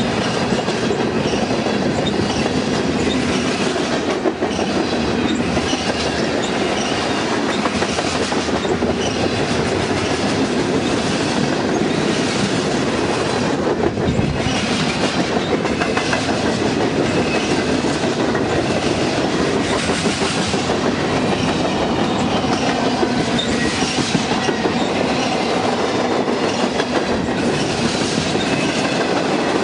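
Freight cars of a manifest train (boxcars, tank cars and autoracks) rolling steadily past at close range: a continuous rumble and rattle of wheels clicking over the rail joints, with short high wheel squeals.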